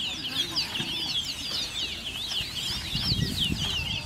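Several caged songbirds singing at once, with rapid chirping and trilling phrases overlapping without a break. A few low thumps come about three seconds in.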